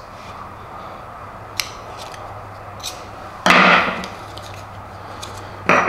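Light clicks and taps of fingers working a small steel vise tail cap, over a steady low hum. A louder half-second sound comes about three and a half seconds in, and another starts near the end.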